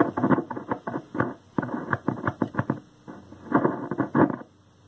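Static crackling in irregular bursts from a 1932 Aztec cathedral radio's speaker as its volume control is turned; the crackle stops a little after four seconds in.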